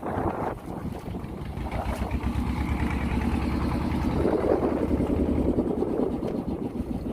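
Fishing boat's engine running steadily under way, a little louder around the middle.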